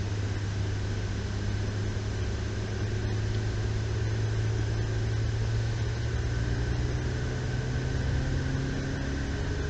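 Ferrari F8 Tributo's 3.9-litre twin-turbo V8 droning steadily at low revs, heard from inside the cabin on a gentle cool-down lap, with the pitch creeping up slightly near the end.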